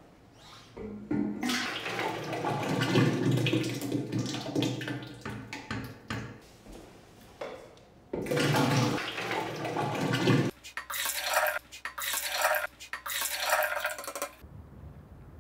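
Thick, creamy liquid poured from a plastic canister into a metal milk can, splashing and gushing: a long pour, then several short gushes as the canister empties, cutting off abruptly near the end.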